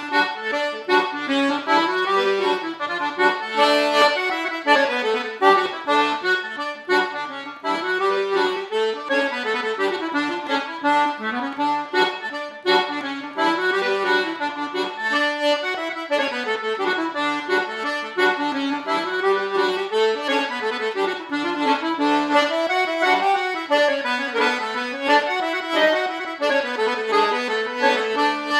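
Button accordion playing a solo tune, a fast melody of many quick notes in repeating, rising and falling phrases over sustained reedy chords.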